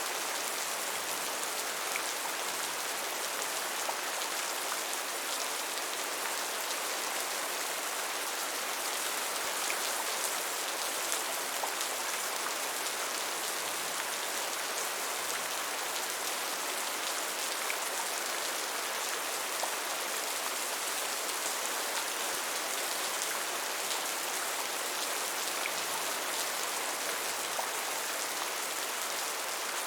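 Steady rain falling, an even hiss with scattered drop ticks that holds level throughout.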